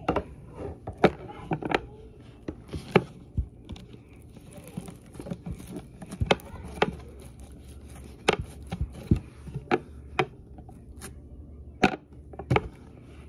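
Slime being pressed and kneaded into the strings of a racket, giving irregular sharp pops and clicks.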